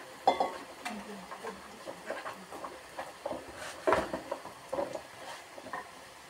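Potato sticks deep-frying in hot oil in a black iron wok, bubbling and crackling with many small pops. Two sharp, louder clicks stand out, about a third of a second in and about four seconds in.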